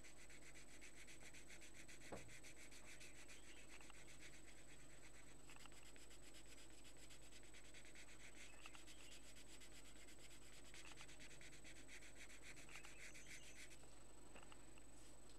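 Faint scratchy strokes of a coloured pencil shading on paper. They come in spells of a few seconds with short pauses between. There is a single soft tap about two seconds in.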